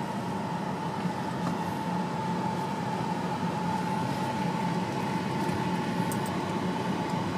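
Steady road and engine noise inside a moving car, with a constant whine held at one pitch.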